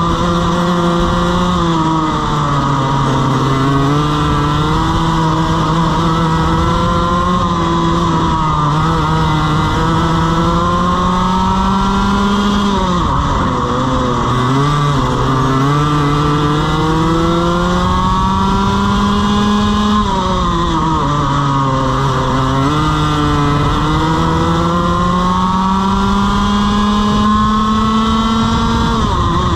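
Two-stroke TaG racing kart engine running hard, heard onboard. Its pitch climbs steadily along the straights and drops sharply about 13 seconds in and again about 21 seconds in, as the kart slows for corners.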